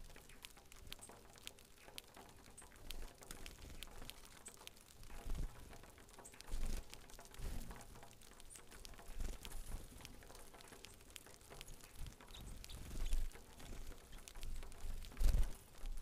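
A flock of saffron finches feeding on grain on a platform: scattered light ticks of beaks pecking at seed and small feet hopping, with a few faint short chirps. There are occasional soft low thumps, more of them near the end.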